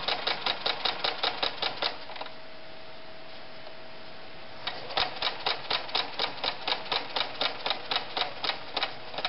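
White model 1077 'Jeans Machine' sewing machine stitching through eight layers of denim with a jeans needle: its needle strokes click evenly about six times a second. The stitching stops about two seconds in and starts again about halfway through.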